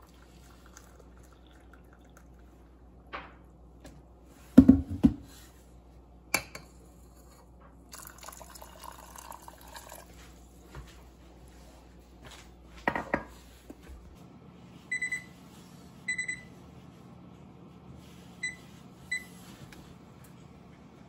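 Stainless steel saucepan clunked about on the counter, then water poured into it for a couple of seconds, another clunk as it is set down, and in the second half four short high beeps from the electric glass-ceramic cooktop's touch controls as the burner is switched on.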